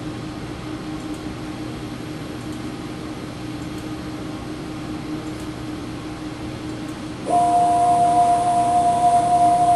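Steady low machine hum. About seven seconds in, the motorised stage of a Ram Optical Sprint CNC video measuring machine starts driving and a louder, steady, even-pitched motor whine with a high hiss cuts in suddenly.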